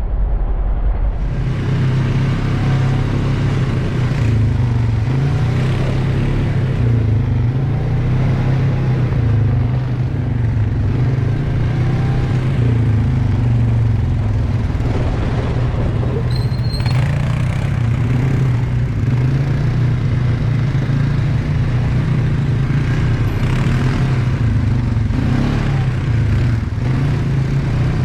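ATV engine running steadily as the quad rides along a rough dirt trail, with scattered rattles and knocks from the machine.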